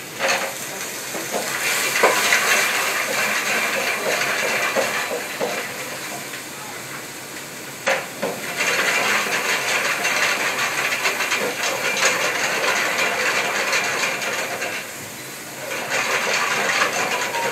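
Food frying in a pan of hot oil, sizzling loudly in surges that die back twice and flare up again, with a sharp click just before the second surge.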